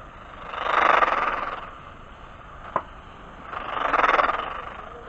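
Emergency Alert System header data bursts: two harsh, buzzing digital screeches about a second long each, with a sharp click between them. They signal the start of an EAS message, ahead of the attention tone.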